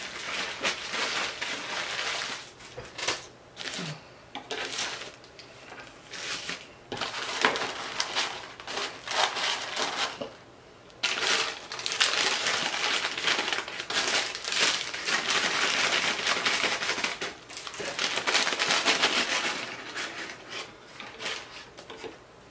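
Paper fast-food wrappers rustling and crinkling as they are unwrapped and handled by hand, in irregular bursts with a pause of about a second near the middle.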